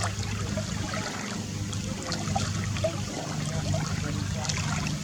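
Water lapping and trickling along a shoreline, over a steady low engine hum.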